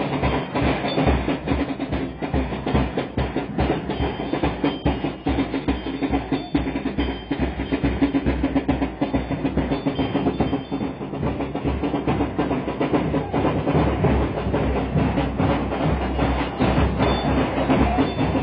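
Drum-led percussion music playing a fast, dense beat without a break.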